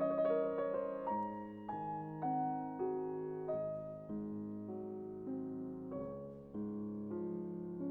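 Background instrumental music: a slow keyboard melody, a new note about every half second, each note fading after it is struck.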